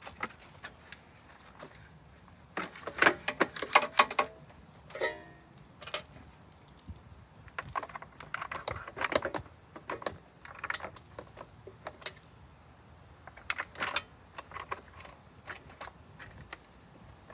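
Clicks, clacks and rattles of a hand tool and the plastic recoil starter housing being handled and fitted onto a lawn mower's overhead-valve engine, in several short clusters, with a brief metallic ring about five seconds in.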